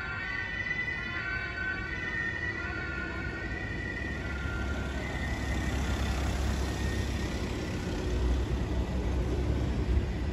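Two-tone emergency vehicle siren, alternating between a higher and a lower note about once a second, fading out about halfway through. Then a low vehicle rumble that grows louder toward the end.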